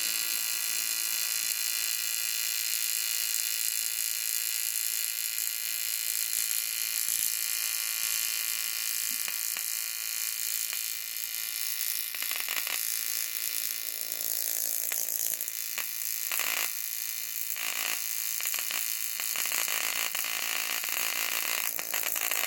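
AC TIG welding arc from an HZXVOGEN AC/DC TIG welder buzzing steadily while welding a thin aluminium radiator. A few short crackles come through in the second half.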